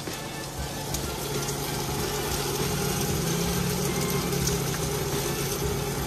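A steady low mechanical hum, like a motor or engine running, over a faint even hiss.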